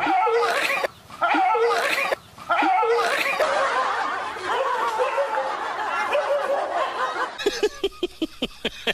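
Laughter, snickering and chuckling in long runs, with two brief breaks about one and two seconds in. Near the end it gives way to a fast, even run of pulses, about four or five a second.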